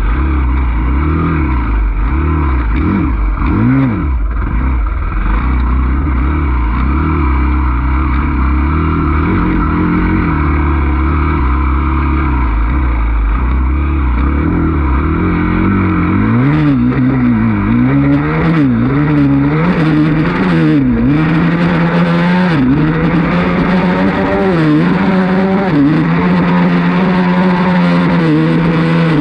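Dirt bike engine under way on a trail ride: uneven low throttle through the first half, then from about halfway it revs up and drops back again and again as the rider shifts, settling to a steadier, higher pitch near the end. A few sharp knocks are heard in the middle.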